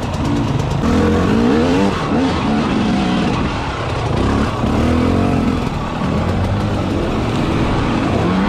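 Enduro motorcycle engine revving, its pitch rising and falling again and again as the throttle is blipped.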